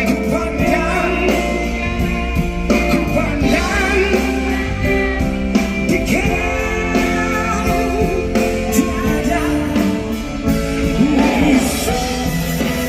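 Live rock band playing a slow Malay rock song, with guitar and a wavering lead melody bending in pitch.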